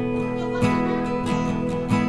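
Background music: strummed acoustic guitar, with a stroke about every two-thirds of a second over held chords.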